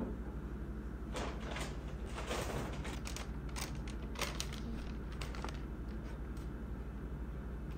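Paper rustling and short knocks as a paper bag and a ceramic plate are handled and set down on a desk, with one sharper knock near the middle, over a steady low hum.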